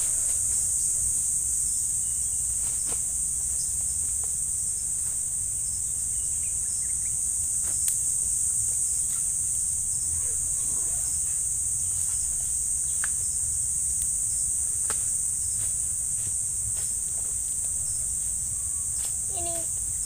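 Steady, high-pitched drone of forest insects, unbroken throughout, with a few faint, sharp clicks scattered through it.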